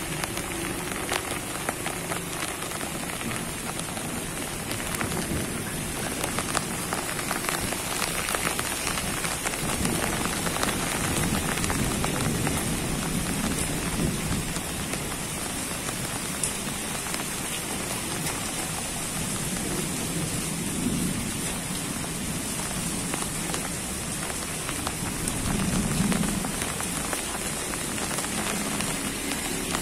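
Heavy rain falling steadily on garden foliage: a dense, continuous patter of drops on leaves.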